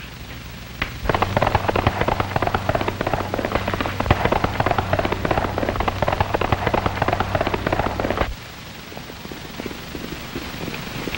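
Galloping horse hoofbeats, a dense run of rapid clattering strikes that starts suddenly about a second in and breaks off near eight seconds. After that only faint crackle and a low hum remain.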